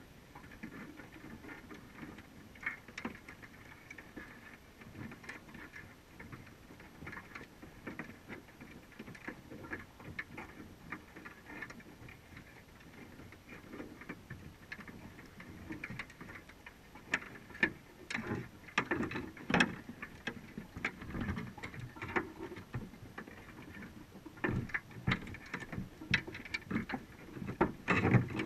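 Underwater sound of a crab trap picked up through a GoPro's waterproof housing: irregular clicks, taps and scrapes of crabs crawling over the wire mesh and bait cage. The clicking grows busier and louder in the second half.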